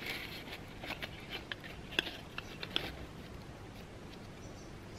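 Handling noise of a mesh stuff sack being worked up around a packed camping pot and its drawstring pulled tight: faint rustling with a few soft clicks in the first three seconds.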